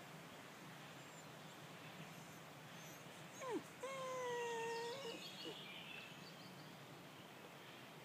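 A dog whining twice: first a short whine that drops sharply in pitch, then a drawn-out whine held for about a second, slightly falling and turning up at the end.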